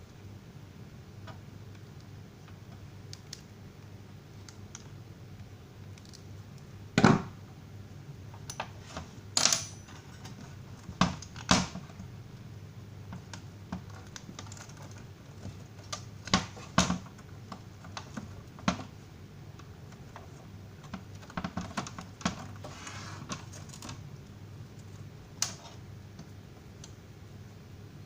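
Irregular light clicks and taps of small hard parts being handled while working on an electric stove's heating element, the loudest about seven seconds in, over a low steady hum.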